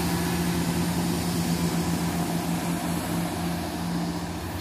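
Class 170 Turbostar diesel multiple unit running past at close range. Its underfloor diesel engines give a steady drone with a fixed low hum over wheel and rail rumble, slowly fading.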